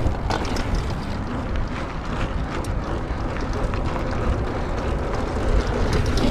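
Steady wind noise on the microphone of a camera riding on a moving bicycle, with scattered light clicks and rattles from the bike.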